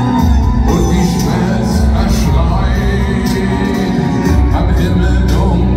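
Industrial metal band playing live through a stadium sound system, with heavy bass and drums under a singing voice, heard from the crowd.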